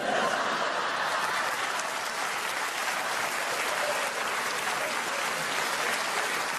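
Theatre audience applauding steadily, starting suddenly right after a comedy punchline.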